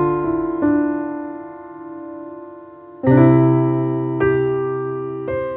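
Background piano music: slow chords struck every second or few, each left to ring and fade.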